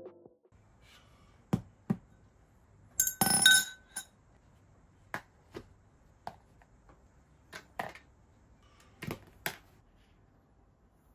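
Glassware and matcha utensils being handled on a table: a ringing glass clink about three seconds in, then a series of separate light knocks and clicks.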